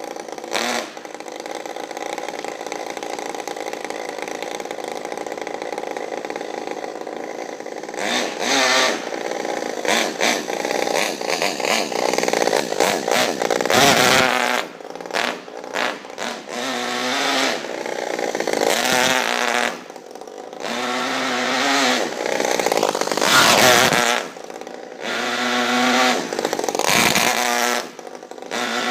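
Modified Saito FA-50 single-cylinder four-stroke glow engine running in a Traxxas Nitro 4-Tec RC car: steady for the first several seconds, then repeatedly revved up and backed off in throttle bursts.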